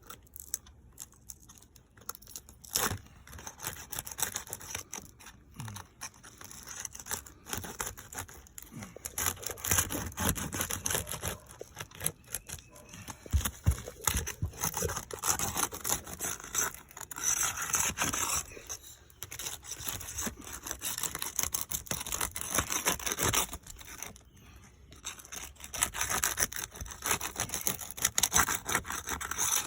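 Roof shingles being lifted and pried at, with irregular scraping, rubbing and tearing sounds and scattered clicks.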